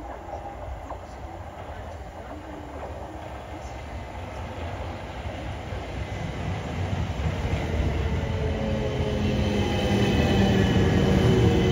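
South Western Railway Class 455 electric multiple unit arriving at the platform, its running noise growing steadily louder as it comes in. In the last few seconds it slows, with a whine falling in pitch.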